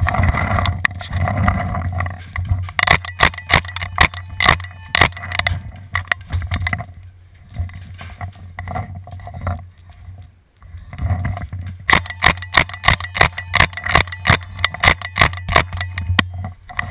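Paintball marker firing in two long strings of rapid shots, about five a second: the first starts about three seconds in, the second about twelve seconds in.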